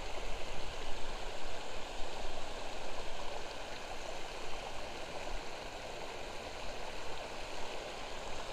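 Creek water spilling over a low weir: a steady rush, a little louder and more uneven in the first few seconds.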